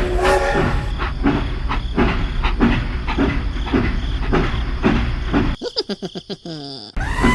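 Rhythmic mechanical clatter, about three beats a second, that stops suddenly about five and a half seconds in. Brief rapid ticking follows, then a steady sound with two held tones starts near the end.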